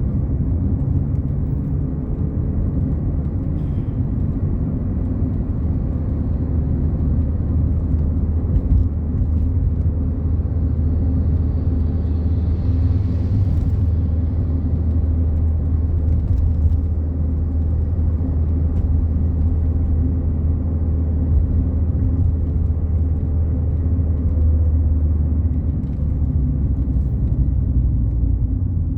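Fiat Palio Fire cruising on a highway, heard from inside the cabin: a steady low rumble of road and engine with a faint even hum. A light hiss swells and fades about halfway through.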